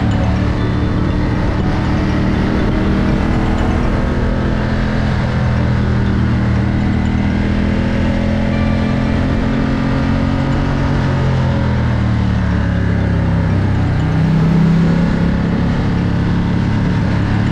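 Ducati Diavel 1260 S's 1262 cc Testastretta DVT V-twin engine running under way at road speed. About two-thirds through, its pitch drops as the throttle is rolled off, then rises again with a short, louder burst of throttle.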